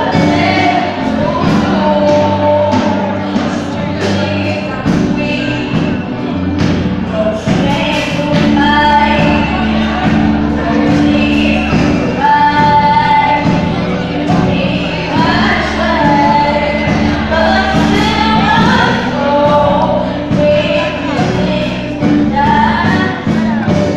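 Children's choir singing a gospel song, a lead voice on a microphone over the group. Instrumental backing of sustained low chords and regular drum hits runs underneath.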